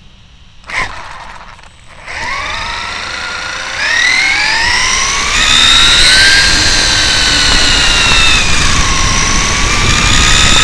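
Brushless electric motor and spur gear of a Traxxas E-Revo 1/10 RC truck (Hobbywing 2200kv motor, 23/54 gearing) whining as the truck accelerates, the pitch climbing in steps, dipping briefly near the end and rising again, over tyre and wind noise heard from on board the truck. A short click about a second in.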